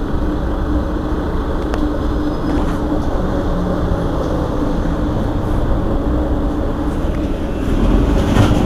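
Mercedes-Benz Citaro Facelift city bus engine idling at standstill with a steady hum, growing louder near the end.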